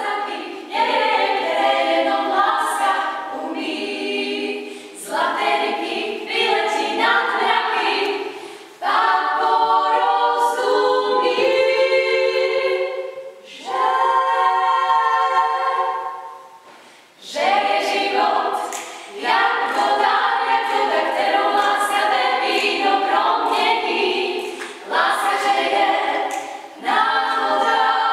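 Female vocal quartet singing a cappella in close harmony, in phrases broken by short pauses, with long held chords near the middle.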